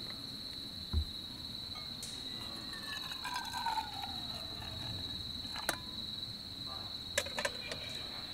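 Night insects chirring in one steady high tone throughout. Around the middle, hot wine is poured from a small kettle into a metal mug. Near the end there are a few sharp clinks of metal as the kettle is set back down on the stove.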